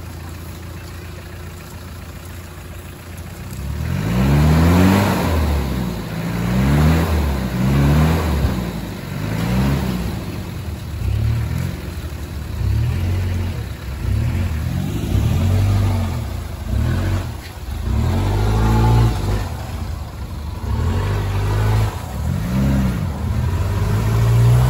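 Off-road 4x4's engine ticking over, then from about four seconds in revved again and again in surges, each rising and falling in pitch, as the vehicle works to get through thick sticky mud.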